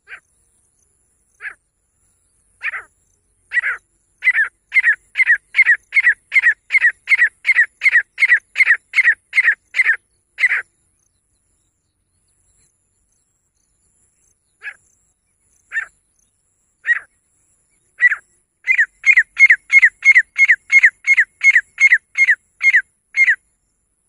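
Female grey francolin calling: a few spaced notes that quicken into a fast, even run of about two to three notes a second, then a pause and the same build-up again.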